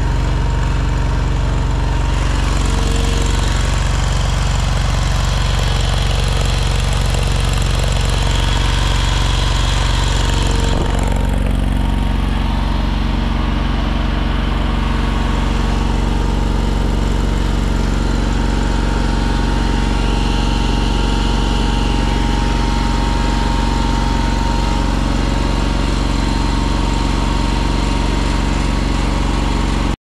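The engine of an AGT Industrial LRT23 mini skid steer idling steadily.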